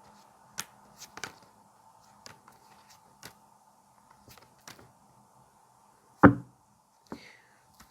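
Tarot cards being handled and laid down on a table: scattered light taps and clicks, with one sharper knock about six seconds in.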